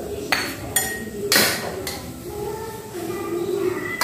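Metal ladle knocking and clinking against a cooking pot and a ceramic bowl as cooked mustard-green and tofu soup is dished out: four sharp knocks in the first two seconds, the loudest with a short ring.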